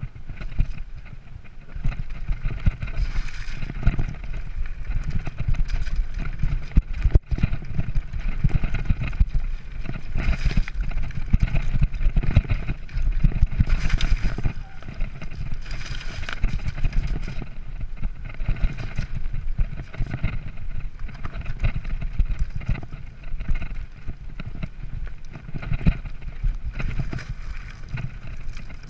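Mountain bike descending rough, stony singletrack: tyres crunching over loose rock and the bike rattling with constant small knocks, under a heavy wind rumble on the handlebar-mounted camera's microphone.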